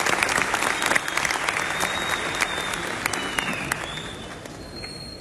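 Audience applauding, with sharp individual claps, dying away over the last second or two.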